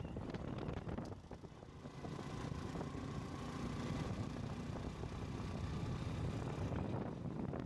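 Motorcycle engine running while riding along a paved street, with road and wind noise. The sound dips briefly about a second in, then picks up again.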